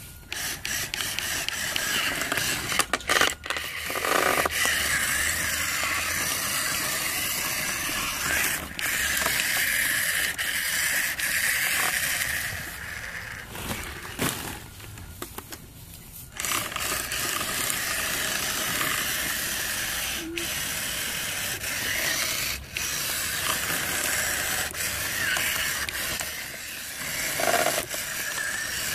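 Electric motor and geared drivetrain of a remote-controlled monster truck whirring as it drives, with a pause about halfway through, while scattered sharp clicks come from the plastic balls it runs into.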